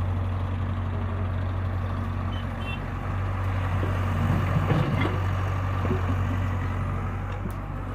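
Heavy diesel machinery running steadily with a low hum, with a brief louder rattle about halfway through.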